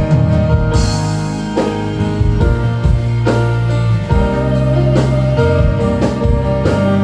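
Live band playing an instrumental passage: held chords over a bass line, with a drum kit keeping time and a cymbal crash about a second in.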